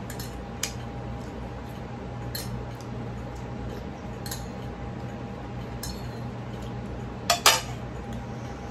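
Metal spoon clinking against a white ceramic soup bowl as the last of it is scooped out: a handful of light, spaced-out clinks, then a louder double clink near the end as the spoon is set down on a ceramic plate. A steady low hum runs underneath.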